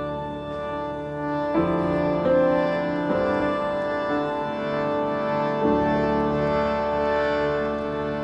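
Slow instrumental music of long held chords, changing chord about a second and a half in, again near three seconds and near six seconds.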